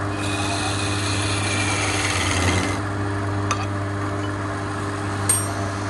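Wood lathe running with a steady motor hum while a hand-held chisel cuts the spinning wood with a rasping hiss. The cutting stops about halfway through and leaves the lathe humming alone, with two short clicks later on.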